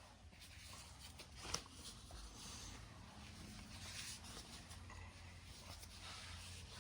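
Near silence: faint room tone with light handling rustles and one small click about a second and a half in.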